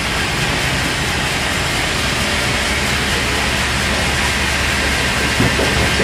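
Steady running of sawmill machinery: an engine with a low hum under a broad, steady whir. There is a single short knock about five and a half seconds in.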